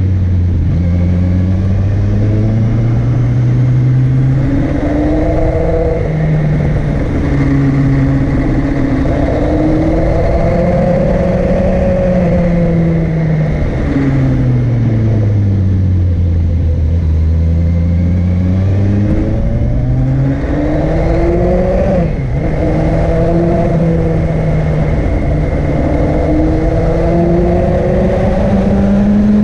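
Motorcycle engine climbing a winding road, its pitch repeatedly rising under acceleration and falling as the throttle eases for bends, with a sharp drop about two-thirds of the way through. Steady wind rush over the microphone runs underneath.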